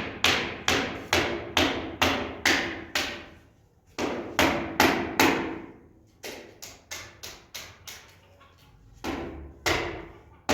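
Hammer blows in steady runs, about two to three strikes a second, each with a short ring. There are brief pauses between runs and a stretch of lighter taps in the middle.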